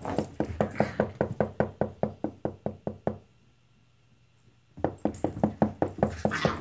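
Fast, even run of knocks and thumps, about eight a second, from two Italian greyhounds playing rough; the knocking stops for about a second and a half in the middle while one dog stands still, then starts again.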